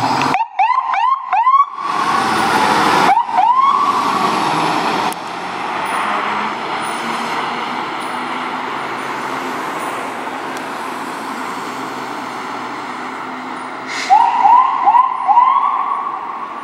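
Fire engine's electronic siren, a Whelen 295 worked in manual mode: a run of short rising whoops near the start, one rise held briefly about three seconds in, and another run of quick whoops near the end. Between them the truck's engine and road noise run steadily.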